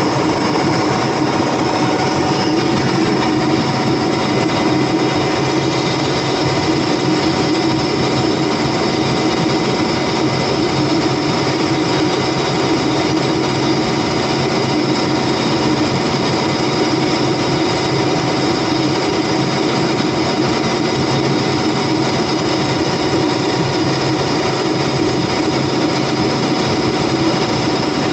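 Volvo Penta TAD1341GE six-cylinder turbo diesel generator-set engine running steadily on its first runs after a top overhaul.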